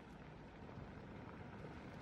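Faint, steady low rumble of outdoor background noise.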